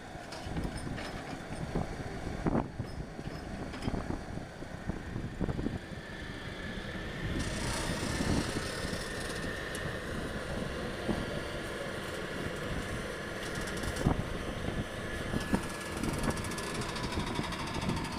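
Excavator's diesel engine working under load, with a steady hydraulic whine from about six seconds in and scattered knocks and thuds as it loads soil into a dump truck.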